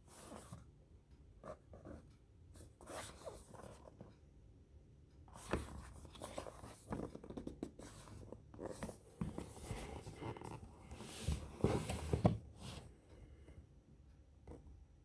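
Hands handling and opening the phone's retail packaging: irregular rustling and scraping of cardboard and plastic, busiest in the middle and with a few light knocks about twelve seconds in.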